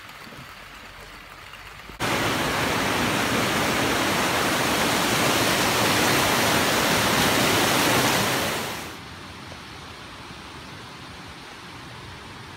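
Muddy river running high in whitewater, a loud steady rush of water that starts abruptly about two seconds in and fades out about seven seconds later. A much quieter steady hiss lies before and after it.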